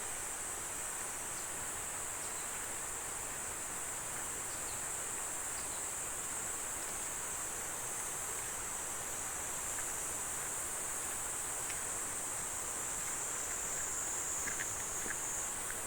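A steady, high-pitched chorus of insects droning without a break, over the even rush of a valley stream, with a few faint bird chirps.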